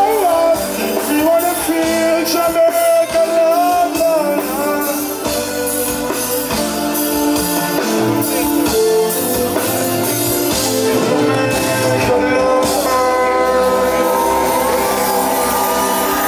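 Live reggae band music, with a sung voice wavering over it for the first four seconds or so, then held chords carrying on with the band.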